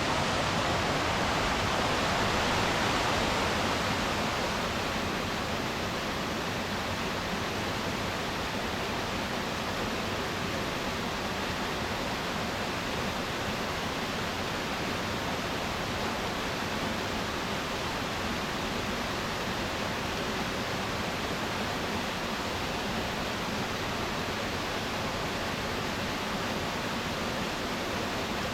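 Waterfall: a steady rush of falling water, a little louder for the first few seconds.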